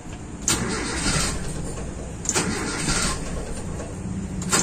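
Starter cranking the carburetted Toyota Kijang engine in three short bursts, the engine not catching. This follows a reset of the distributor's ignition timing, and the engine still won't start.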